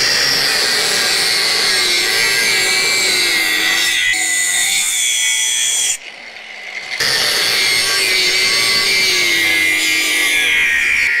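Angle grinder with a cut-off wheel cutting a marked cope line into steel tube, a loud steady whine whose pitch slowly sags as the wheel bites. It drops away for about a second near the middle, then cuts again.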